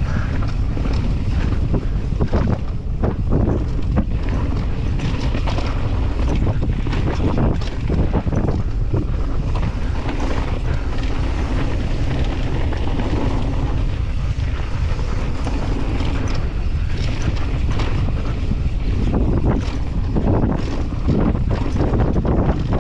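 Wind buffeting a helmet-mounted camera's microphone as a downhill mountain bike descends a dirt and gravel trail, with tyres on loose dirt and rapid, irregular clicks and knocks from the bike rattling over bumps.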